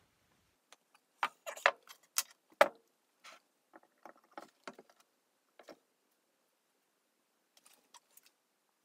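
Clicks and light metal knocks from the parts of an electric motor being handled, as the stator housing is turned and the armature is fitted into it. A quick cluster of sharper knocks comes in the first three seconds, then fainter scattered ticks.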